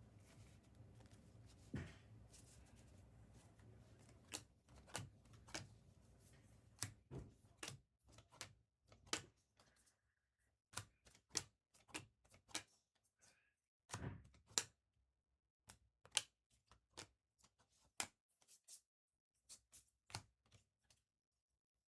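Trading cards being handled and sorted: irregular soft clicks and taps of card stock, about one or two a second, over a faint hum that drops out about eight seconds in.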